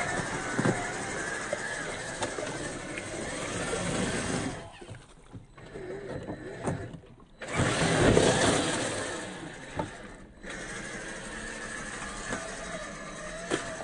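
Electric 550 motor and gearbox of a 1/10 scale RC rock crawler whining as the truck drives through a shallow stream. The sound drops away sharply twice in the middle, then comes back louder.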